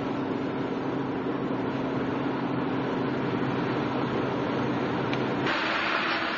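A steady mechanical hum: a low drone with several held tones over a rushing noise. It changes abruptly about five and a half seconds in.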